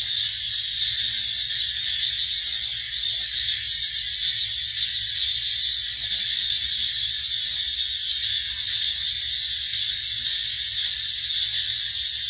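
Steady, high-pitched insect chorus with a fast, fine pulsing that fades out after the first half.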